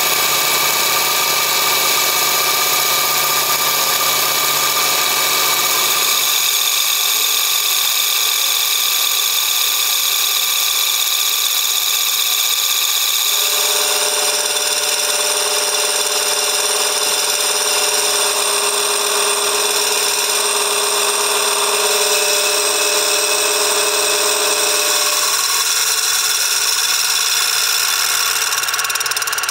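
A power tool runs steadily while cutting a steel knife blade to shape. Its pitch shifts suddenly a few times.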